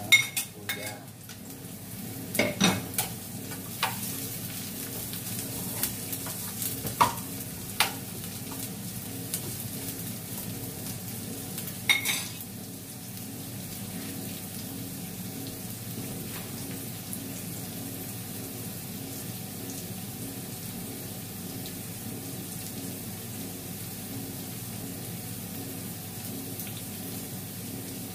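Garlic, onion and ginger sizzling in a frying pan over a gas burner. In the first half a spoon clinks and taps a handful of times as the ginger goes in, then the pan carries on with a steady sizzle.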